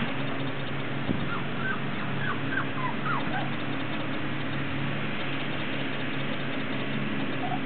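About six short, high yips in quick succession from four-week-old pinscher puppies, each dropping slightly in pitch, over a steady low hum.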